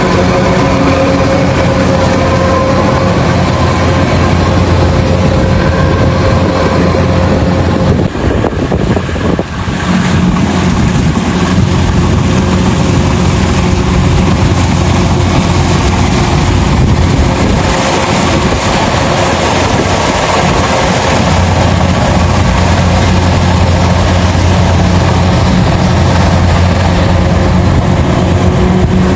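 Rice combine harvester's engine running steadily under load, close by, with the machine's threshing noise over it; the level dips briefly about eight seconds in.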